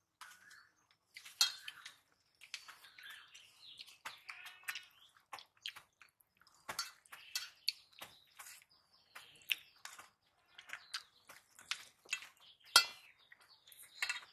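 Hands mixing and scooping rice and curry on stainless steel plates: scattered small clinks and scrapes against the metal, with two louder clinks, one about a second and a half in and one near the end.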